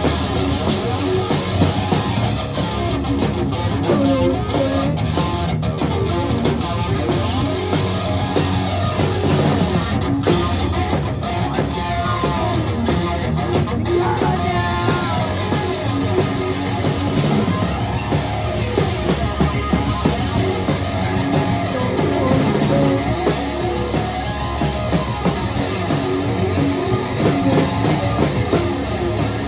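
Rock music with guitar, playing loud and without a break.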